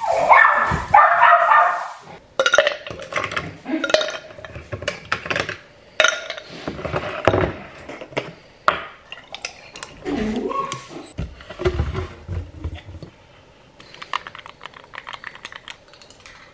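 Ice cubes clinking in a glass and a plastic cold brew bottle being handled and poured over the ice, with many small clicks and knocks. A dog barks in the first couple of seconds.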